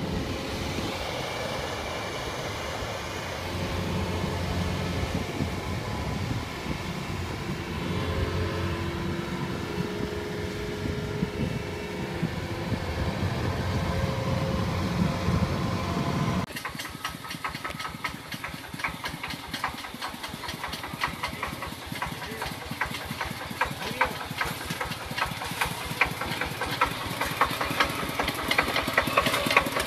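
Kubota rice combine harvester running steadily as it drives on its tracks through a flooded paddy. After a sudden cut about halfway through, a Kubota RT-series single-cylinder diesel on a two-wheel walking tractor runs with a rapid, even putter.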